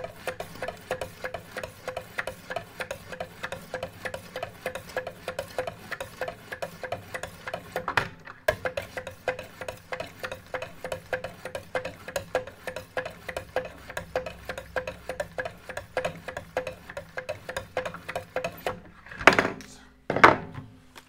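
Sharpening stones on a Wicked Edge guided-rod sharpener stroked alternately down both sides of a clamped knife blade: quick, rhythmic scraping at about four strokes a second, with a brief pause about eight seconds in. Near the end the strokes stop and two louder knocks follow as the stones are lifted off and handled.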